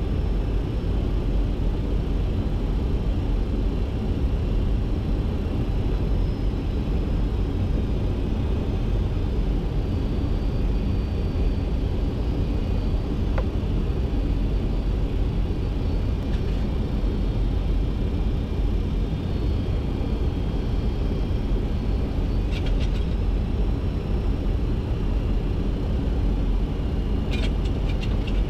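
Steady cockpit noise of a Boeing 737-200 on final approach with gear down and flaps at 30: a low, even rumble of airflow and engine sound on the flight deck.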